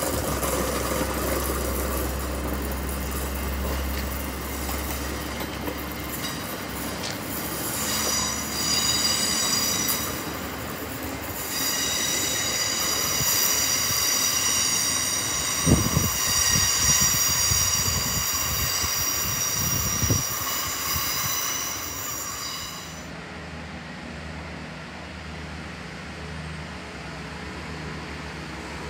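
Great Western Railway Hitachi Intercity Express Train moving through the station. A low rumble for the first few seconds gives way to wheels squealing on the rails: a high, many-toned screech from about eight seconds in until a little after twenty seconds, with two clunks near the middle. A quieter steady hum follows.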